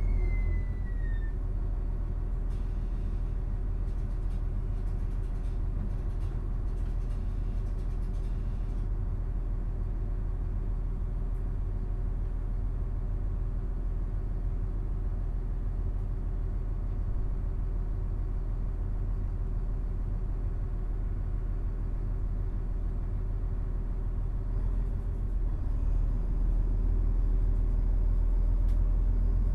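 Diesel engines of a DB class 642 Desiro railcar, heard from inside the passenger compartment, running at a steady idle while the train stands almost still. A high whine falls away in the first second as it comes to rest. Near the end the engine note rises as it begins to pull away.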